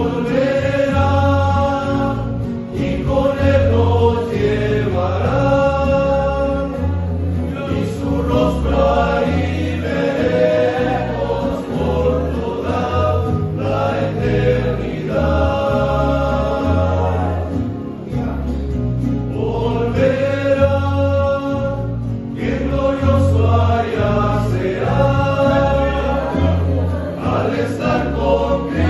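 Young men's church choir singing a Spanish-language hymn in full voice, accompanied by strummed guitars and a deep bass line.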